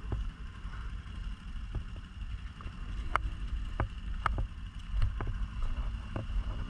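ATV engine running low and steady while the quad sits stuck in mud, with about eight sharp clicks and knocks scattered through.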